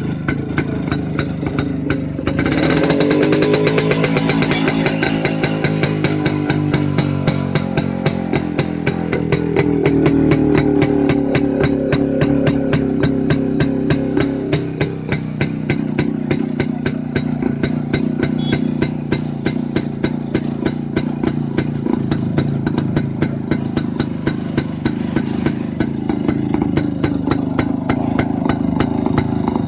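Yezdi motorcycle engine running with a steady, even beat of exhaust pulses. It is revved up about two and a half seconds in and again around ten seconds in, then settles back to a steadier tickover.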